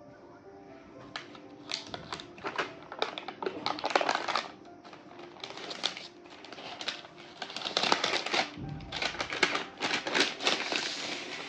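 Cardboard and paper packaging of a MacBook Air box being handled: the paper sheet and inner cardboard tray are lifted and slid out in irregular bursts of rustling and scraping, over faint background music.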